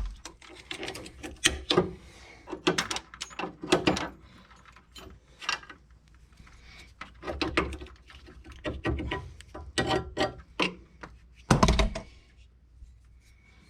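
Hand tools working on a car's sway bar end link: irregular metallic clicks, clinks and knocks, with one heavier knock near the end.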